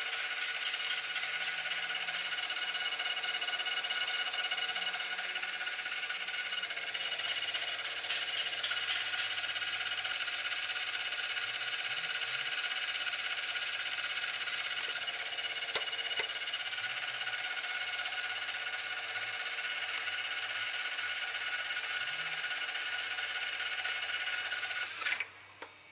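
Metal lathe running with a steady whine from its motor and gears while it drills a small centre hole in a PTFE rod and then turns its outer diameter. The machine sound stops just before the end.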